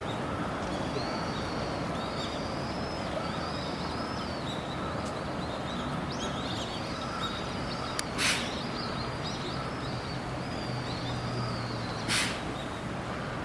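Small birds chirping continuously over a steady low background rumble. Two short, sharp hissing bursts stand out, about four seconds apart, near the middle and near the end.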